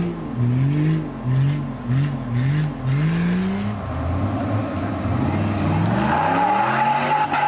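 Off-road 4x4's engine revved in about five quick bursts, settling low, then climbing and held at higher revs from about six seconds in, with a steady whine over it.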